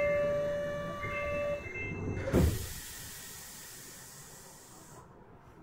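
Kyoto subway 20 series train's door buzzer sounding, stopping about a second and a half in. The doors then shut with a thump, followed by a hiss that dies away about five seconds in.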